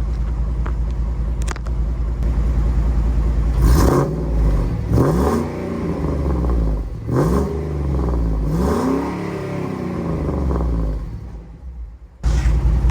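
Ford F-150's 5.4-litre three-valve V8 idling through a Borla Pro XS muffler and a short, full 3-inch exhaust with no catalytic converters, then revved four times and dropping back to idle after each. The sound drops away near the end, then a steady idle starts again.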